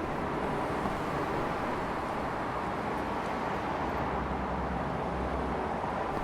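Street traffic ambience: a steady wash of passing vehicles, with a deeper rumble building about two-thirds of the way through.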